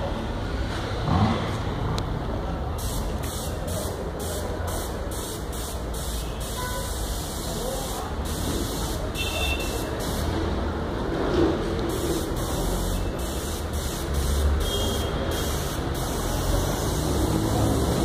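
Paint spray gun fed by a homemade air compressor, hissing in many short bursts as the trigger is pulled and released, over a steady low hum.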